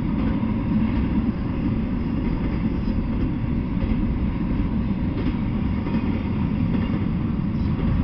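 Double-stack intermodal container freight train rolling past: a steady rumble of steel wheels on the rails.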